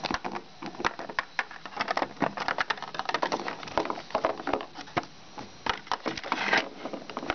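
Small plastic toy figures being handled and set down on a plastic playset: an irregular run of light clicks, taps and rustles, with a longer scraping rustle about six and a half seconds in.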